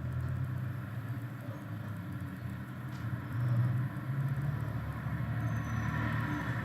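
A motor vehicle's engine running with a steady low rumble, swelling a little a few seconds in.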